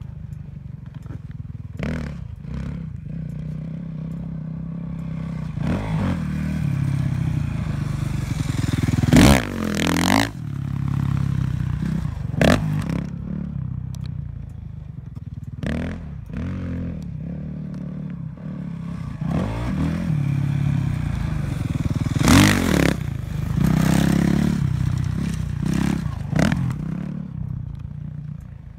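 Dirt bike engine running and revving up and down over and over as it rides a sand track, with several louder swells of revs, the loudest about nine to ten and twenty-two seconds in.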